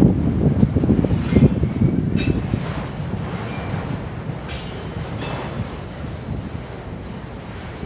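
Slow Union Pacific autorack and intermodal freight train rolling past, its wheels rumbling and knocking over the rails with brief high-pitched wheel squeals. The rumble is loudest for the first two or three seconds, then eases, and a longer squeal sounds about six seconds in.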